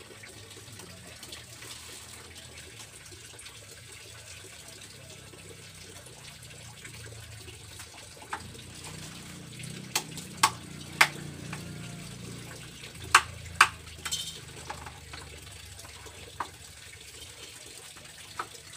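A knife chopping a fish on a cutting board: a scattered series of about nine sharp knocks, bunched mostly in the middle, over a steady sound of water.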